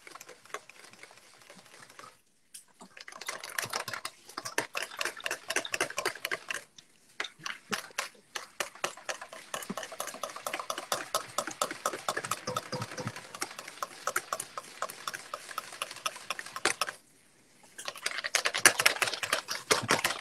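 Wire whisk beating fast against a stainless steel bowl, a rapid run of clinks that stops briefly about two seconds in, around seven seconds and again near seventeen seconds. It is whisking egg yolks while melted butter is trickled in, emulsifying a hollandaise sauce.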